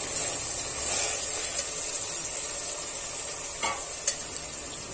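Marinated mutton sizzling in hot oil in a pressure cooker as it is stirred with a perforated metal spoon, a steady hiss. Twice near the end, a short sharp click stands out.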